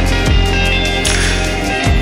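Music with a heavy bass line and a steady beat, the deep bass notes sliding down in pitch with each hit.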